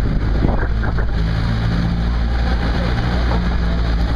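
Vehicle engine running steadily under load on a rough off-road track, with short knocks and rattles from the bumps.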